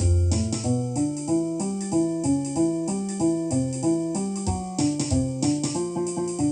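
Jazz played on a keyboard with an electric-piano sound over a bass line, the notes and chords changing several times a second.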